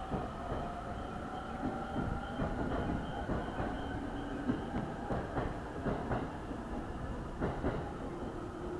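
A train moving alongside the platform, its wheels clicking irregularly over rail joints under a steady running noise with a faint, slowly falling whine.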